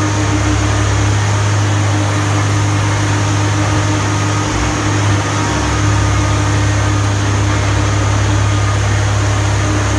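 Diesel engine of a Komatsu PC300LC hydraulic excavator running steadily, a loud low drone that shifts briefly about five seconds in.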